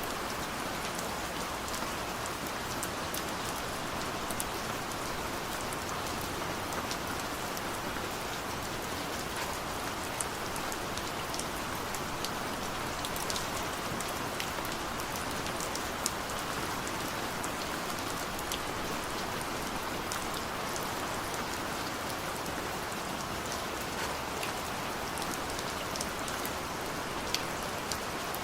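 Steady rain, an even wash of noise with scattered sharp drop ticks.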